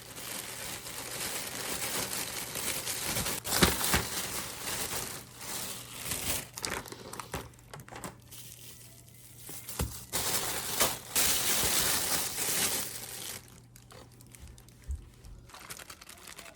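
Packaging crinkling and rustling as it is handled, in two long spells with a quieter stretch between them and a few sharp clicks early on. A steady low hum runs underneath.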